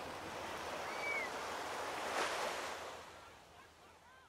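Ocean waves washing onto a shore, swelling about two seconds in and then fading out toward the end.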